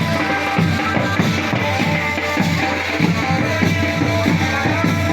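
Music with a steady drum beat and a melody over it.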